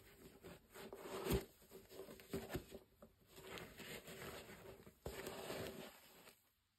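Faint handling noise of cotton-gloved hands working a leather sneaker: rubbing and scraping of glove on leather as the tongue is flexed, with a few light knocks about one and a half and two and a half seconds in.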